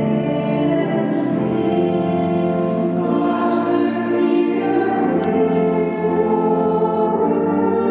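A choir of voices singing a slow hymn, holding long sustained notes.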